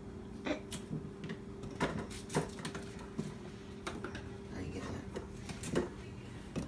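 Light knocks and taps from things being handled on a kitchen counter, about a dozen scattered unevenly over several seconds, over a steady low hum.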